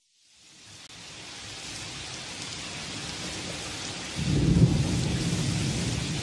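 Steady rain fading in from silence, with a low rumble of thunder coming in about four seconds in.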